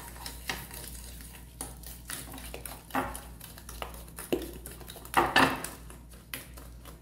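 A fork beating egg, sugar and margarine by hand in a glass baking dish: quick, rapid clicks and scrapes of metal on glass, with louder knocks about three seconds in and just after five seconds.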